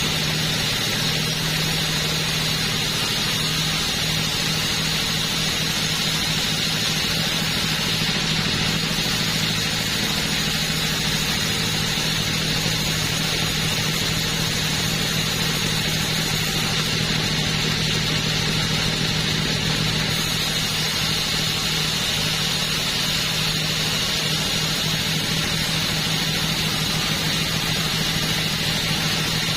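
Two-stroke chainsaw running steadily at a constant, unchanging pitch.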